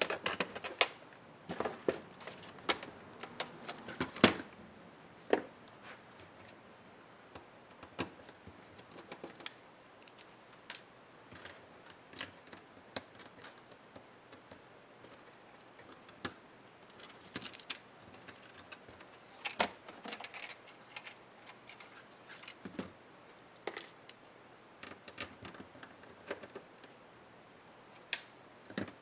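Scattered clicks and light taps of a Dell Inspiron 15 7537 laptop's parts and small tools being handled during disassembly, coming in clusters with quieter gaps between.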